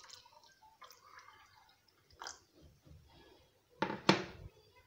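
Homemade fruit juice poured from a jug into a glass tumbler, a faint liquid trickle and splash. A sharp knock about four seconds in, as a vessel is set down on the hard countertop.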